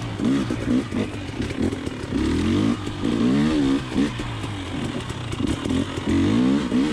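2020 KTM 300 XC TPI's fuel-injected two-stroke single running through a Pro Circuit Type 296 spark-arrester silencer. It revs up and down over and over as the throttle is worked on the trail, with its pitch rising and falling several times.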